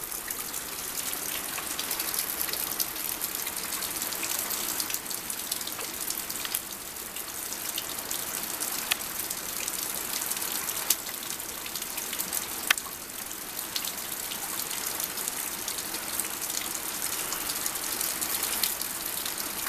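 Floodwater running: a steady, even rush of water, with a few sharp ticks around the middle.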